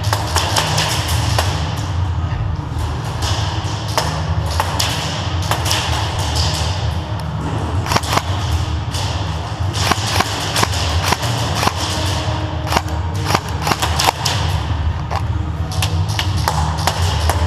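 Bass-heavy electronic music with a thumping beat and many sharp clicks and hits over it.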